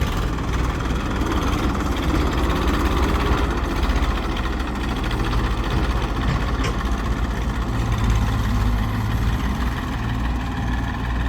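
Heavy machine's engine running steadily, an even low drone.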